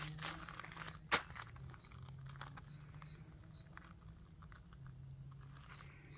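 Faint rustling and clicking handling noises, with one sharp click about a second in, over a low hum and faint, repeated high chirps.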